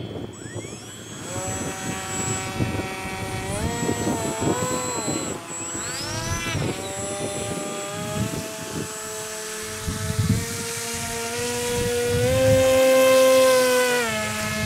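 Whine of a radio-control model's electric motor and propeller, its pitch rising and falling as the throttle changes. There is a quick rise and fall in pitch about six seconds in, and it is loudest shortly before it drops away near the end.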